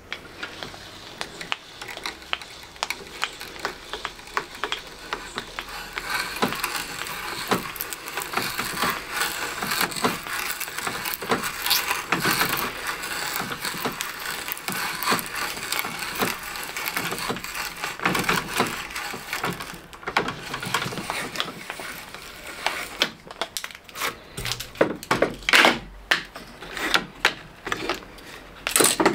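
Wood auger bit boring through plywood: a steady crackle of clicks as the bit's cutting edges shave the wood into curled chips. In the last few seconds come a few separate sharp knocks.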